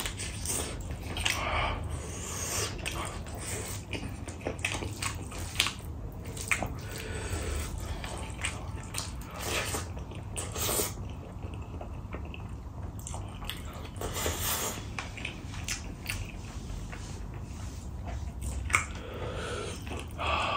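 Close-up eating sounds: wet chewing, lip smacks and slurps, irregular and continuous, as chicken curry and rice are eaten by hand.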